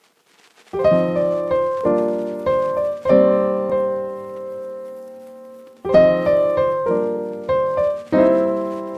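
Background piano music: a slow phrase of struck chords and notes that ring and fade, starting about a second in, with a long fading chord before a new phrase begins near the end.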